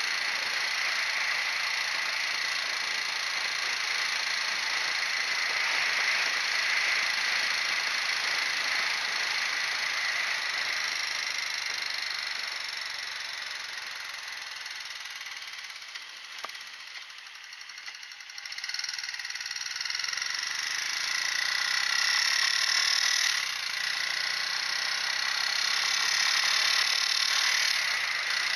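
Motorcycle being ridden: the engine runs under a steady rush of wind noise, eases off briefly about two-thirds of the way through, then pulls again with its pitch rising and falling.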